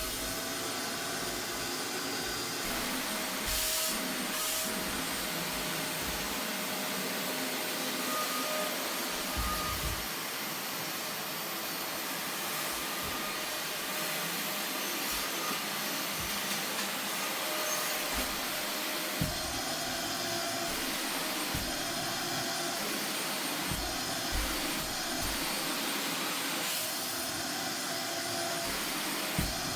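Vacuum cleaner running steadily, its motor hum wavering slightly in pitch, with a few soft low bumps along the way.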